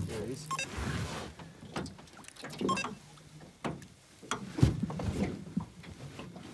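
Handling sounds of landing a hooked trout from a jet ski: irregular knocks and rustles of the spinning rod and reel against the craft, with small splashes at the water's surface. The loudest knock comes a little past halfway.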